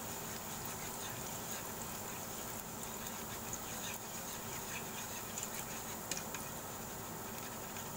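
Minced garlic sizzling gently in oil in a nonstick frying pan, stirred with a spatula that scrapes and taps the pan a few times.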